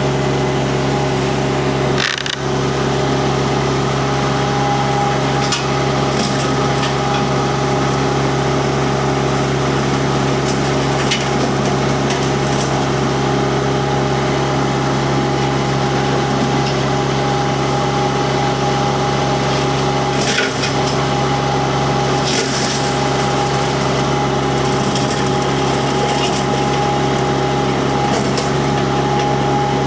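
Rippa RS06 mini skid steer's Kubota D1105 1.1-litre diesel running steadily under load, driving a spinning disc mulcher with a steady high tone over the engine note. The mulcher chews into wood, with scattered sharp cracks and snaps of splintering wood every few seconds.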